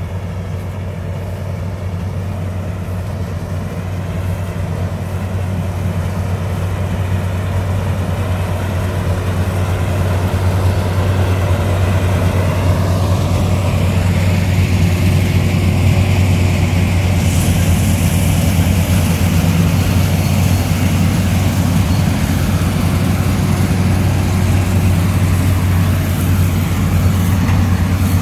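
Worldstar WS7.0 rice combine harvester running steadily while harvesting, with a constant low engine hum. It grows louder over the first ten seconds or so as the machine comes closer.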